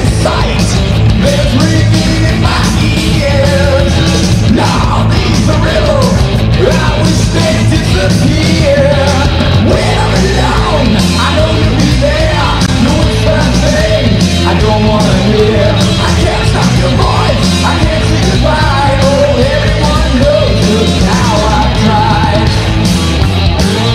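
Power/progressive metal band playing: distorted guitars, bass and drums, with a lead melody bending and sliding in pitch over them.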